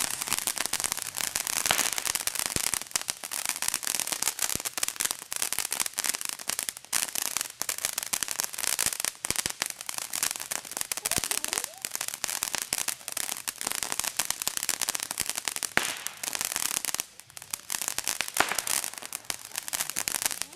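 Large handheld sparkler burning with a continuous hissing crackle of rapid pops, briefly quieter for a moment a few seconds before the end.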